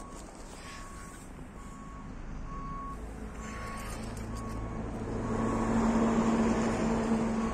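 A vehicle's reversing alarm beeping a single high tone about once a second. About five seconds in, an engine hum grows louder.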